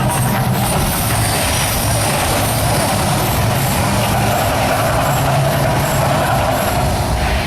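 Mirage Volcano's eruption effects making a loud, steady rushing roar with a low rumble underneath, which drops off suddenly near the end.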